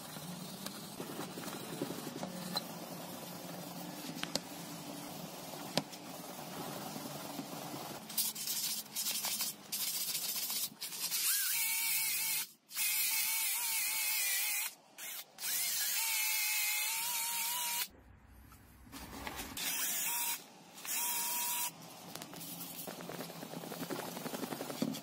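Brass wire brush scrubbing an angle grinder's armature. Then a cordless drill runs in several bursts with a hissing whine, starting and stopping, while the armature is cleaned with abrasive. The brushing comes back near the end.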